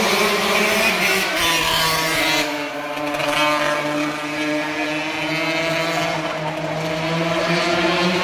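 Racing motorcycle engines running at high revs, a steady drone whose pitch drifts slowly up and down.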